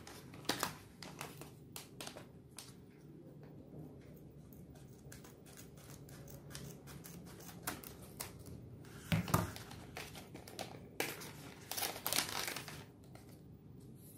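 Packaging of a small LEGO set being opened by hand: crinkling and tearing with scattered clicks, and louder bursts of rustling about two-thirds of the way through.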